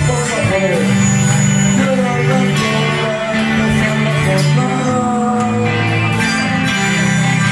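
Loud live rock band playing, electric guitars over a steady low bass line and drums.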